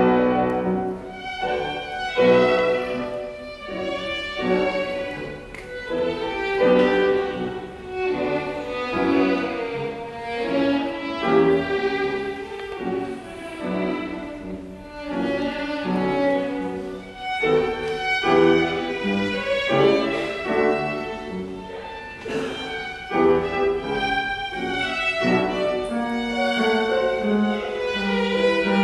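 Small string ensemble of violins and double bass playing classical music. It comes in suddenly with a loud first note, then plays on without a break.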